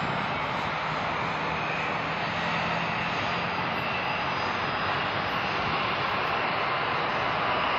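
Boeing 777-300ER's twin GE90-115B turbofans on final approach, a steady rushing jet noise with a faint high whine, growing slightly louder as the airliner closes in.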